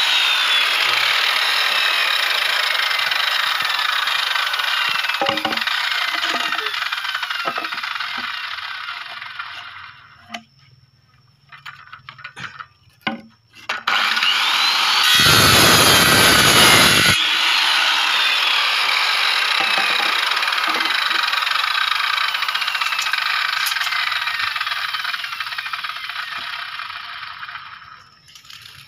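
Corded circular saw cutting through bamboo poles: the motor runs under load and winds down about ten seconds in. A few knocks of bamboo being handled follow. The saw then starts again with a rising whine about fourteen seconds in, makes a second cut, and runs down near the end.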